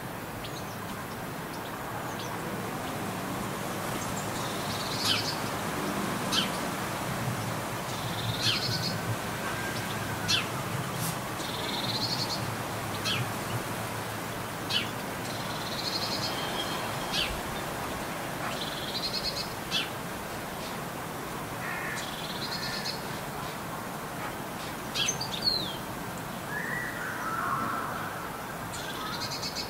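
Birds calling: one bird repeats a short high phrase every few seconds, with sharp ticks in between and a lower falling call near the end, over a steady low background noise.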